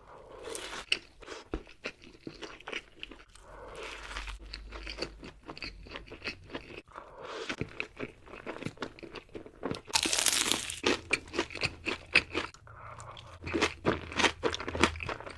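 Close-up eating of crunchy food: a person biting and chewing, with quick runs of sharp crunches and softer hazy chewing between them. A louder, longer crackling bite comes about two-thirds of the way through.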